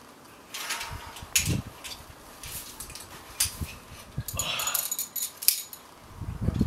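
Rock climber grunting and breathing hard with effort on strenuous moves: short strained grunts, the strongest about a second and a half in and near the end, with forceful exhalations between them and a few sharp clicks.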